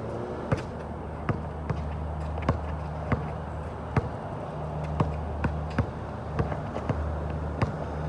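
Basketball being dribbled on an outdoor hard court: about a dozen sharp bounces at an uneven pace, over a steady low hum.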